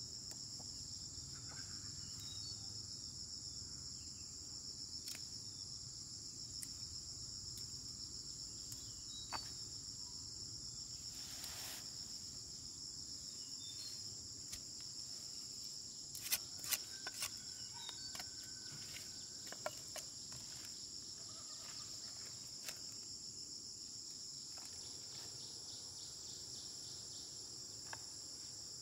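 Steady high-pitched drone of insects in the surrounding vegetation. Over it come scattered small clicks and rustles as peanut pods are picked off uprooted plants, with a cluster of sharper clicks just past halfway.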